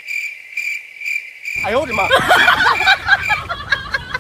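Cricket-chirp sound effect, a steady high trill pulsing evenly, laid over the audio after a cut; it stops about three and a half seconds in. Voices and laughter come in over it about a second and a half in.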